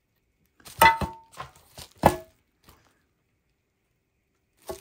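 Sheet-aluminium mount brackets knocking as they are handled: a few sharp knocks, the loudest about a second in and another about two seconds in, each with a brief ringing tone, and one more near the end.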